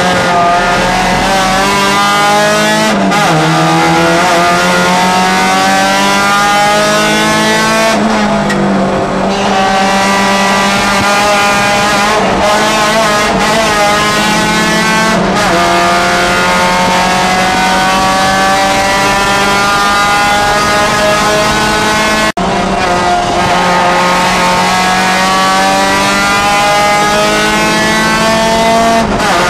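Honda Challenge race car's four-cylinder engine heard from inside the cabin at full racing effort, its note climbing steadily and dropping back sharply at each gear change or lift, several times over.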